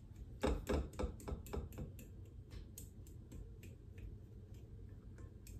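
Metal fork tapping and scraping against a glass bowl while mashing lumps out of dry corn muffin mix: a fast run of light ticks, about four a second, louder in the first two seconds and fainter after.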